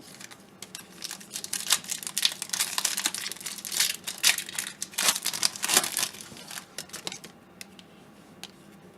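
Crinkling and tearing of a foil trading-card pack wrapper being opened and handled, dense crackle for about six seconds, then a few light clicks near the end.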